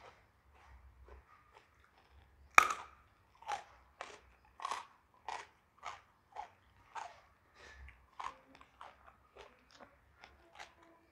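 Close-up chewing of raw jengkol (dogfruit) with rice: a steady run of crunching chews, one or two a second, with one loud crunch about two and a half seconds in.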